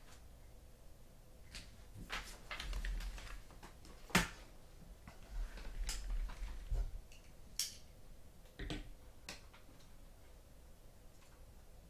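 Irregular light clicks and taps on a desk, a dozen or so scattered over several seconds, the sharpest about four seconds in.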